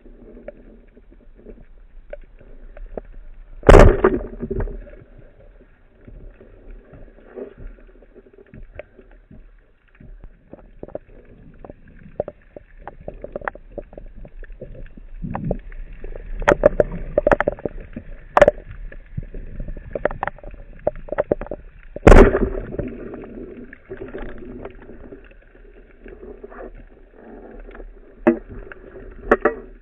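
Underwater sound: a steady hum with scattered small clicks, a sharp crack a few seconds in, and a loud snap about 22 seconds in as the speargun fires and its shaft spears a fish.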